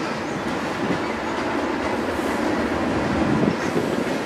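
Freight train with diesel locomotives and boxcars running by, a steady noise of engines and wheels on the rails.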